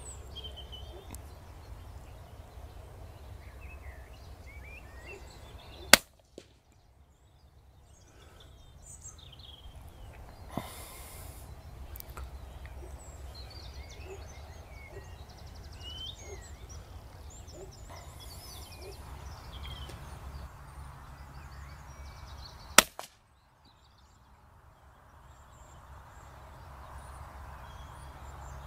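Two shots from a moderated CZ 452 .22LR rimfire rifle firing subsonic rounds, about seventeen seconds apart, each a single short report and the loudest thing heard. Small birds chirp in the background between them.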